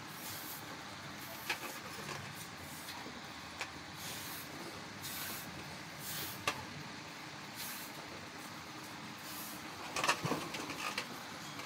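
A person blowing up a large latex balloon by mouth: a series of hissing breaths and puffs of air, a second or two apart. About ten seconds in comes a cluster of squeaks and clicks as the balloons are handled.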